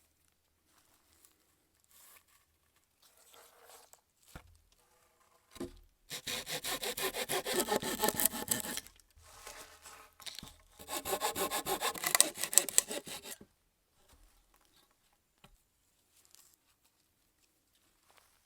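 A hand saw cutting wood in quick back-and-forth strokes, about four a second. The sawing comes in two runs of roughly three seconds each, with a short pause between, after a couple of light knocks.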